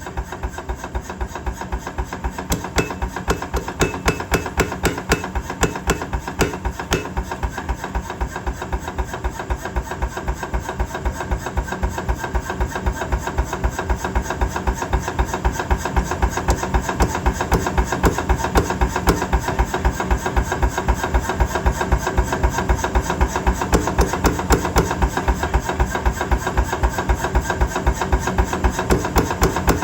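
Power hammer forging steel: a fast, even rhythm of heavy blows, with a steady machine hum underneath.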